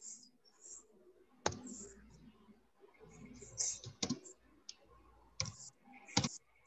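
A handful of sharp, irregularly spaced clicks of computer keys as text is typed and corrected, the loudest near the end.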